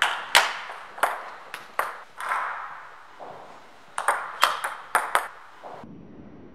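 Table tennis ball clicking sharply off paddles and the table in two quick runs of strokes and bounces, about five clicks in the first two seconds and about five more between four and five seconds in.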